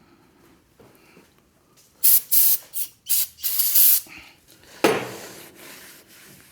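A spray hissing in short bursts about two seconds in: three quick squirts, then a longer one of nearly a second, as the sanded brake drum is cleaned off. Just before five seconds a sudden fuller noise starts and fades out over about a second.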